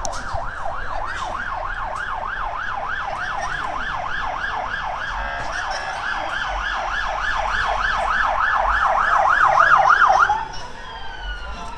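Emergency vehicle siren on a fast yelp, sweeping up and down about three times a second and growing louder. About ten seconds in it switches off and winds down in a slowly falling tone.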